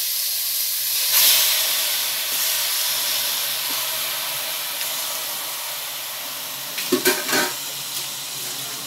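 Raw chicken pieces sizzling in a hot aluminium pressure-cooker pot on the stove: an even hiss that swells about a second in and then slowly dies down. A few quick knocks come around seven seconds in.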